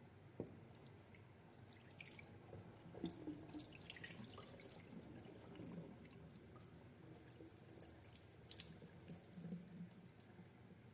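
Faint trickling, dripping and small splashes of rinse water poured off a bowl of soaked rice into a sink.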